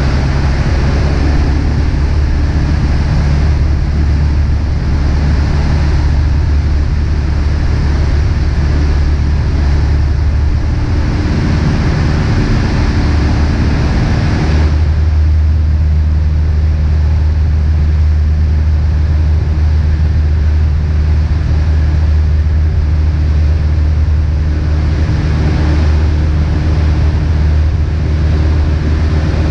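A Beechcraft Musketeer's piston engine and propeller drone steadily, heard inside the cabin in flight with a rush of air. About halfway through the tone changes and the higher rushing sound drops off.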